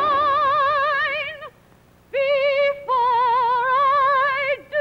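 Soprano voice singing long, high held notes with a wide vibrato in a show tune. It breaks off about one and a half seconds in, then comes back sliding up into the next held note.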